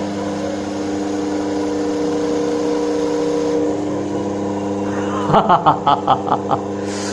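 DC motor belt-driving a 220 V universal sewing-machine motor, running with a steady hum of several even tones. About five seconds in, a rapid pulsing chatter of roughly seven beats a second sets in for over a second as the universal motor self-excites and lights an incandescent bulb.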